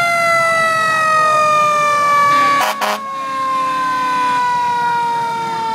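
Fire truck siren sounding one loud, steady tone that slowly falls in pitch after a sharp rise. There is a short burst of noise about halfway through.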